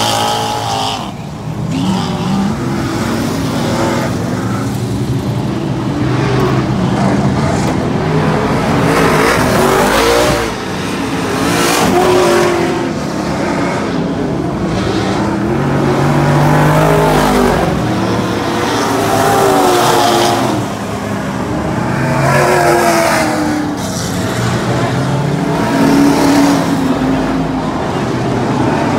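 Race car engines on a dirt oval, revving up and falling off again and again as the cars run laps.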